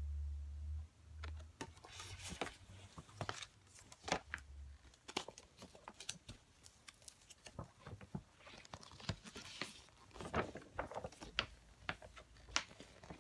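Glossy paper crinkling and rustling as a folded album poster is handled and opened out, with many irregular sharp crackles and taps.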